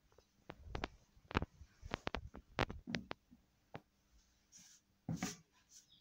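A quick run of light knocks and taps over the first few seconds, then a short rustle about five seconds in, from paper and a paintbrush being handled on a wooden tabletop.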